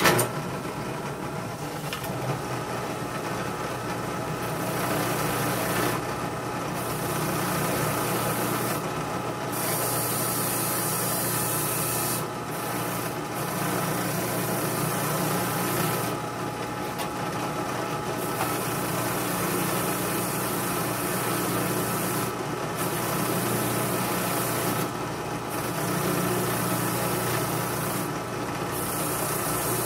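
Drill press switched on, its motor running steadily at speed, while a cleaning attachment in the chuck scrubs against a pocket knife's metal in hissy passages a few seconds long, broken by short pauses.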